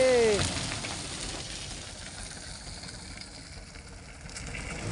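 A Mitsubishi Fuso dump truck passing close on a muddy dirt road. A whining tone drops sharply in pitch and ends about half a second in, then a fading hiss as the truck moves away.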